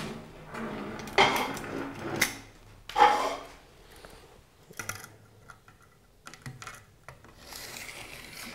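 A tape measure and carbon-fibre turbine blades being handled on a wooden table, making rubbing and scraping noises. A few louder scrapes come in the first three seconds, then lighter clicks and taps.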